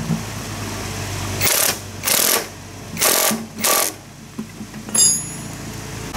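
Cordless impact wrench hammering on a motorbike's front axle nut in four short bursts, then a sharp metallic clink that rings briefly about five seconds in.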